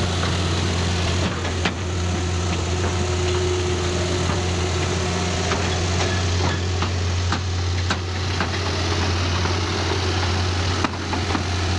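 Diesel engine of a Caterpillar crawler dozer idling steadily, with a few light clicks over it.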